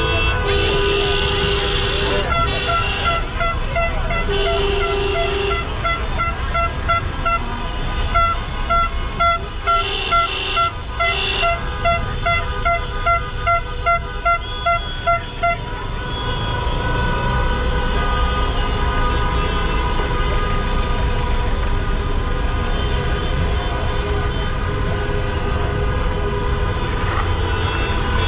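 Car horns honking in jammed city traffic: one horn beeps over and over, about two short beeps a second, from a couple of seconds in until about halfway through. After that comes a steady din of traffic with held horn tones.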